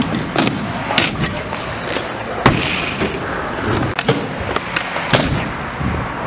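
Stunt scooter wheels rolling on concrete skatepark ramps, with repeated sharp clacks as the wheels and deck strike the surface.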